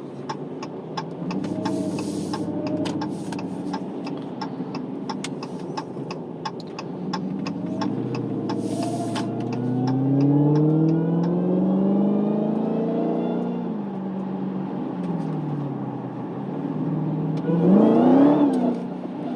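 Dodge Challenger SRT Hellcat Redeye's supercharged V8 accelerating on a wet road. The engine note climbs steadily for several seconds with a high whine rising above it, then falls back. Near the end it flares up and drops again quickly as the rear steps out in the rain and traction control brakes the wheels and cuts the throttle.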